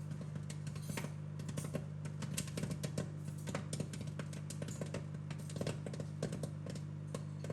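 Microwave oven running with a steady low hum while popcorn kernels in a microwave popcorn tub pop irregularly, many quick sharp pops in no set rhythm.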